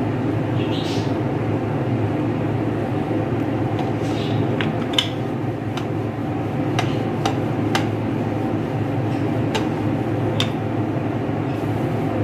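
Pizza dough being pressed and rolled out with a wooden rolling pin on a floured board: soft scrapes and a run of sharp clicks and knocks in the middle, over a steady background hum.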